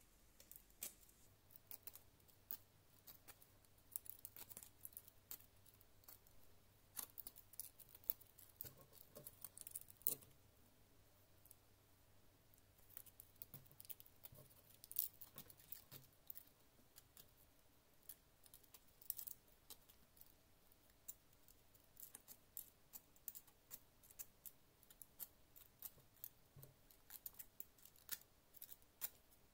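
Faint, irregular scratching and small ticks of sandpaper being rubbed over the ends of a thin lacquer-coated copper wire, stripping off its insulating coating.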